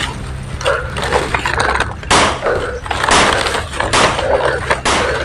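Leaves, fern fronds and grass rustling and brushing as someone pushes through dense undergrowth. Four stronger swishes come in the second half, about one a second, like steps forcing through the brush.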